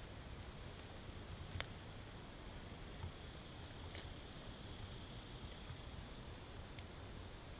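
Steady, high-pitched drone of insects singing in a summer forest, unbroken throughout, with a faint click about one and a half seconds in.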